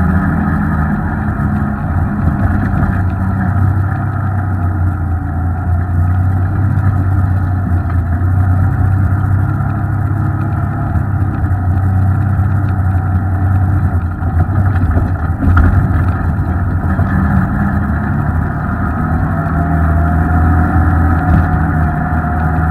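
Off-road vehicle engine running steadily under light load as it crawls along a rough dirt trail, with a low, even drone that swells and eases slightly with the throttle. A faint whine comes in near the end.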